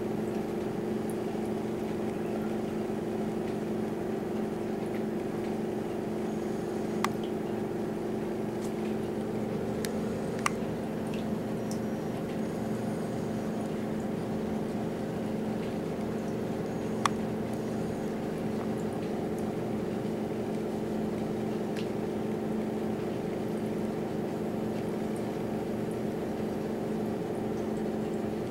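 Tornado vortex machine running: a steady, even fan-motor hum with a low drone, broken by a few short sharp ticks.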